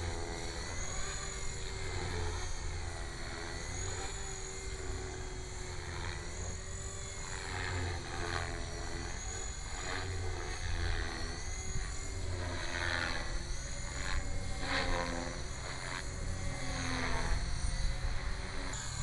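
Electric HK450GT RC helicopter in aerobatic flight: the whine of its Align 430XL brushless motor and spinning rotor wavers up and down in pitch and swells repeatedly as the collective pitch is loaded and unloaded.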